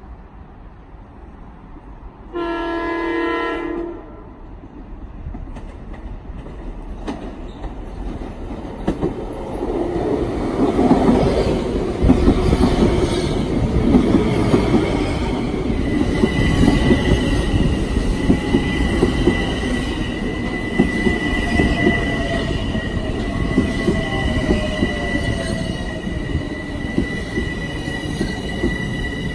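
Metro-North M7A electric train sounding one chord horn blast of about a second and a half, then coming up and running past with a loud rumble of wheels on rail. About halfway through, a steady high-pitched squeal joins the rumble and holds.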